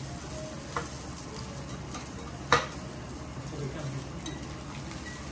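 Food sizzling on a teppanyaki steel griddle while a metal spatula and fork scrape and tap the plate. One sharp metal clack about halfway through is the loudest sound.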